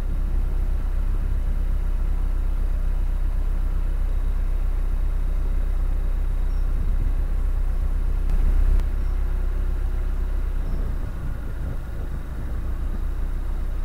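Narrowboat's inboard diesel engine running steadily while cruising, with a low rumble that swells briefly about eight seconds in.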